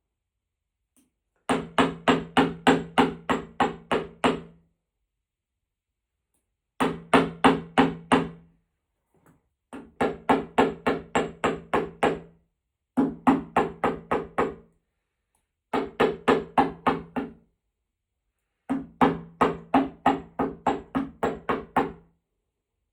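Hammer blows on metal while forging a silverpoint stylus: rapid, evenly spaced strikes at about four a second with a ringing tone, in six bursts of a few seconds separated by silences.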